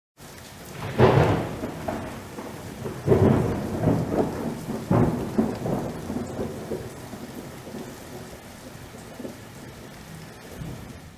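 Thunderstorm sound effect: rain falling steadily while thunder cracks about a second in, rolls again twice, and rumbles away.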